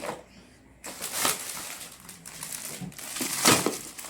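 Plastic packaging crinkling as it is handled, in two bursts, the louder one near the end.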